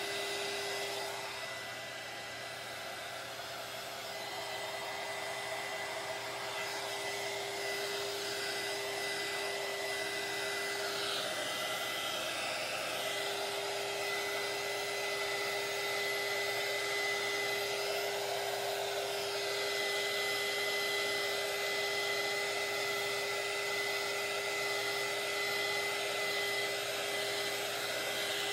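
Handheld heat gun running steadily, its fan blowing with a steady whine, passed over freshly epoxied tumblers to pop bubbles in the epoxy.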